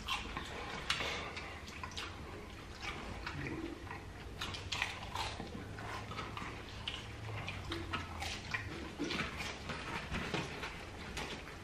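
Close-miked chewing of chicken nuggets, with irregular wet smacks and clicks of mouths eating.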